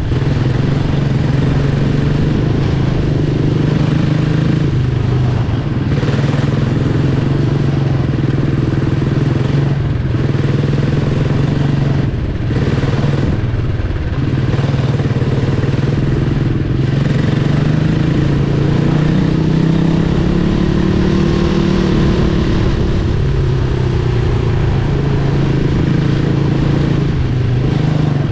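Onboard sound of a quarter midget's Briggs & Stratton Animal single-cylinder engine running hard at racing speed, its pitch wavering a little as the throttle eases and picks up through the turns.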